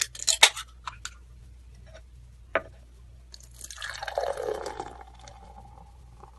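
Liquid, likely beer, pouring into a glass for about a second and a half, starting about three and a half seconds in, preceded by a few sharp clicks.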